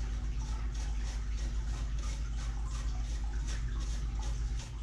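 Ginger root being rubbed up and down a metal box grater: a rasping scrape at about three strokes a second, over a steady low hum.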